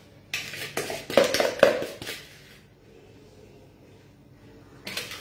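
A pink plastic mixing bowl being knocked and handled to empty out the last of the meringue: a quick run of knocks and scrapes for about two seconds, then one more knock near the end.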